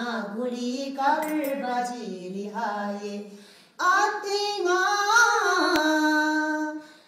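A woman singing an old Yidu-language folk song of the Lhoba people, unaccompanied: one phrase, a short break about three and a half seconds in, then a louder, long-held phrase.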